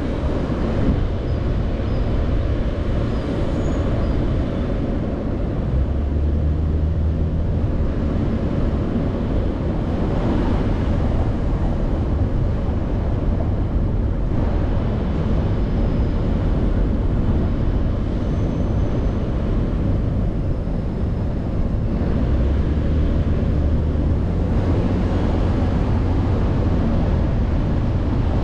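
A car driving slowly: a steady low rumble of engine and tyres on the road, with the engine hum growing stronger for a couple of seconds about six seconds in and again a little after twenty seconds.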